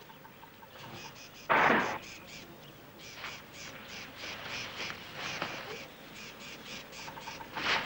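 A young elephant calf gives a short, harsh trumpet during a mock charge about a second and a half in, the loudest sound, with a shorter call near the end. Insects chirp in rapid, even pulses underneath.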